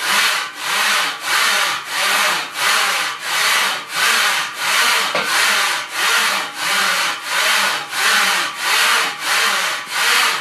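Moving parts of a monkey-bar training rig rasping back and forth as it is worked forward and rearward, in an even rhythm of about two strokes a second.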